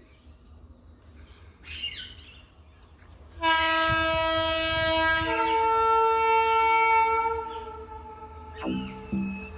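Locomotive horn sounding one long blast of about four seconds, a steady multi-note chord that shifts to a different pitch partway through, over a low rumble. Rhythmic music starts near the end.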